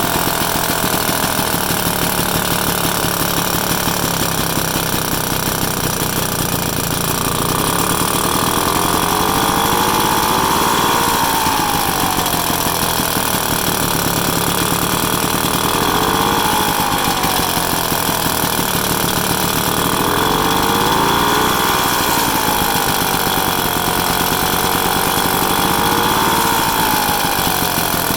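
A freshly rebuilt 1966 Vespa SS180 single-cylinder two-stroke engine runs on a stand on its first start after the rebuild. It idles with a fast, rattly beat and is revved up and back down four times, from about a third of the way in.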